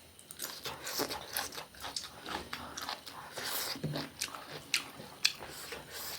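Close-miked eating: a person biting and chewing crisp fried food, with a run of irregular crunches and mouth noises and a couple of sharper cracks near the end.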